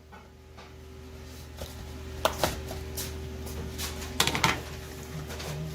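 Kitchen clatter at a food stall: a few sharp clicks and knocks of utensils or pans, about two seconds in and again around four seconds, over a steady low hum.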